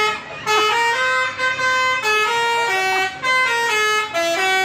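Bus 'telolet' horn: a multi-tone musical horn playing a melody of held notes that step up and down, in short phrases with brief breaks between them.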